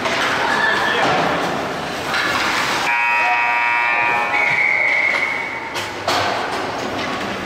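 Arena horn sounding one steady, multi-toned blast of about three seconds, starting a little before halfway in, over the noisy background of a hockey rink crowd and skaters.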